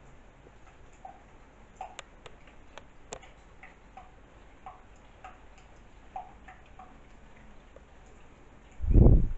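Faint ticks, roughly two a second and slightly uneven, with a few sharper clicks around two to three seconds in. A dull low thump just before the end is the loudest sound.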